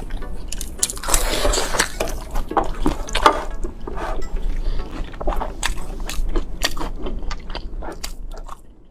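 Close-miked eating sounds: a person chewing, with irregular clicks and smacks, fading away near the end.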